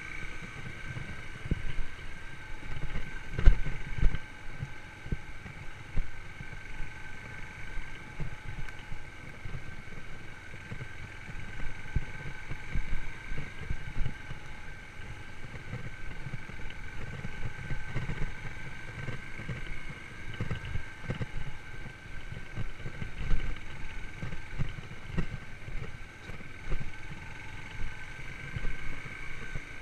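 Yamaha YBR125's single-cylinder four-stroke engine running at a steady speed while riding, with a steady whine and irregular low thumps of wind buffeting the microphone.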